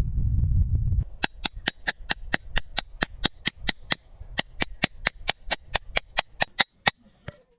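A loud, low rumble that cuts off about a second in. It is followed by a fast, even run of sharp knocks, about four or five a second with one short break, which stops near the end.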